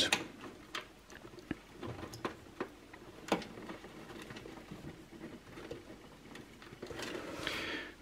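Faint small clicks and rustling of thin wires as a front-panel connector plug is handled and pushed onto motherboard header pins, with one sharper click about three seconds in and a brief rustle near the end.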